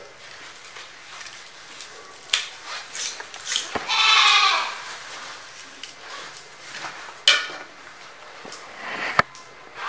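A farm animal bleats once, a wavering call about a second long, about four seconds in, among scattered sharp clicks and knocks.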